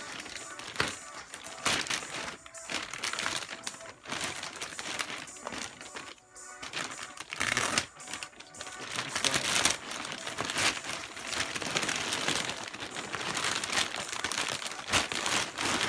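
Large plastic bag crinkling and rustling as it is handled and opened, in irregular crackly bursts.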